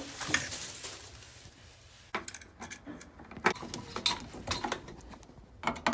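A rustle, then a quick, uneven run of sharp clicks and clinks from small hard objects being handled.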